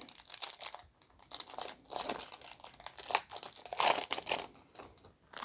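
A foil trading-card pack wrapper being torn open and crinkled: irregular crackling and tearing, with a louder crinkle about four seconds in.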